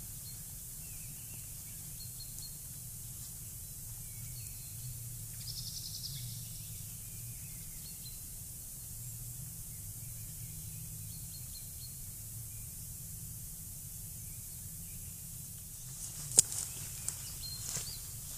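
Faint, scattered bird chirps over a steady outdoor hiss in a spruce forest. About sixteen seconds in, a sharp loud click, then several lighter ones: footsteps on the damp forest floor.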